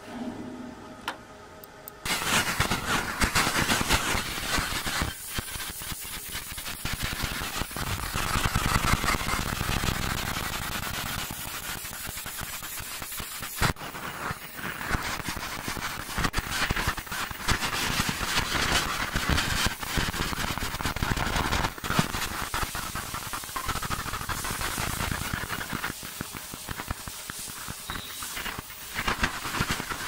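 A 50 W fiber laser's beam cutting into 0.5 mm brass sheet: a dense, crackling hiss that starts suddenly about two seconds in, after a faint steady hum, and runs on as the beam traces the design.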